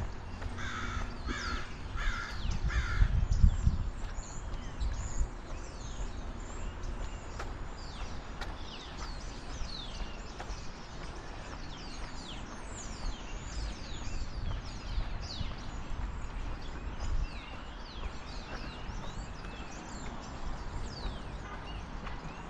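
A bird gives four harsh calls in quick succession in the first few seconds, then many small birds chirp with short, quick falling notes, over a steady low rumble.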